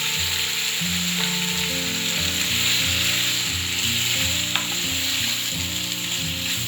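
Chicken livers and potato pieces sizzling steadily in oil in a pan, with a single light tap about four and a half seconds in.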